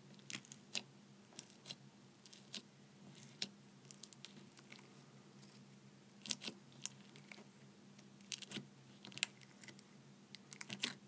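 A finger poking and squishing foam-bead slime in a small plastic pot: irregular little crackles and clicks from the beads, a few sharper ones in the second half.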